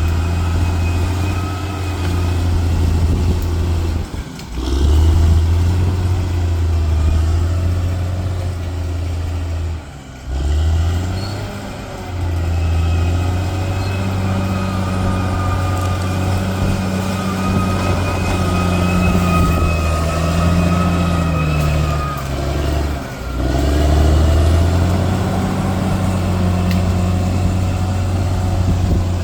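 Bulldozer's diesel engine running steadily under load, its pitch shifting as it works, with a steady high whine above it. The sound dips briefly three times.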